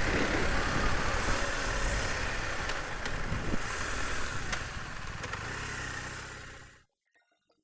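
Riding noise from a BMW motorcycle on the move: steady wind and road noise with the engine running underneath, fading out to silence about seven seconds in.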